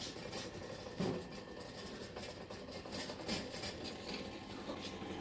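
Vintage popcorn machine running, its kettle's stirring motor humming steadily while it turns the oil, sugar and kernels, with small scattered clicks and a louder knock about a second in. The kernels are heating and not yet popping.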